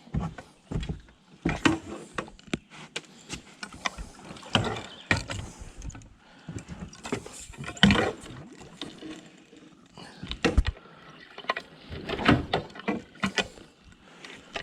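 Irregular knocks, bumps and scraping of a fishing boat being worked into a tight spot, hull and gear clattering, with a dozen or so sharp knocks spread through.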